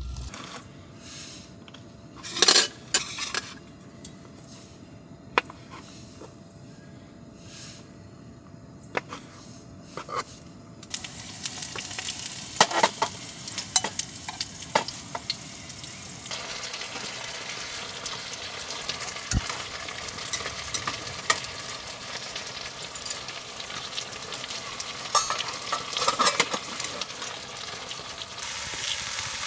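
Food frying in a pan, a steady sizzle with clinks and scrapes of utensils, starting about eleven seconds in. Before it, a few scattered knocks and clinks over a low background.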